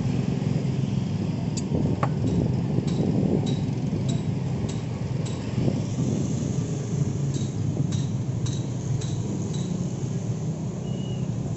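Light clinks of china plates knocking together, about a dozen in all, spread over most of the stretch. They sound over a steady low rumble of road traffic.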